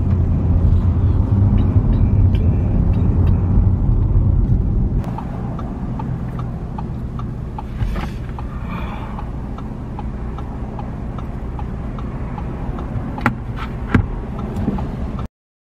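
Interior noise of a car being driven: a steady low engine and road rumble, louder for the first five seconds and then quieter, with a light regular ticking over it and two sharper clicks near the end.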